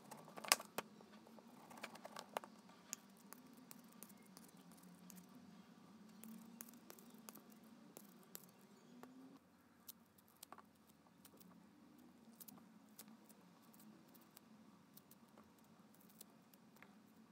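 Faint crackling and scattered small clicks of orange peel being cut and torn off by hand, the loudest clicks about half a second in, over a faint low hum.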